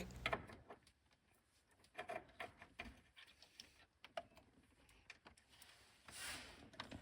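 Near silence with a few faint, scattered clicks and taps of parts of a steering rack's bushing assembly being handled and fitted, and a soft rustle near the end.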